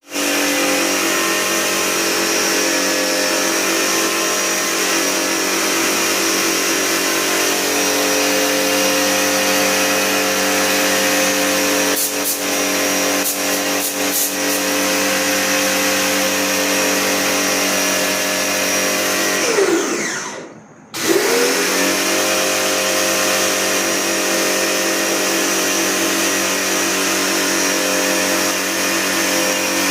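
An electric motor-driven machine running steadily with a hiss, with a few short clicks around twelve to fourteen seconds in. About twenty seconds in its pitch falls as it winds down, it cuts out for about a second, then it starts again and rises back to speed.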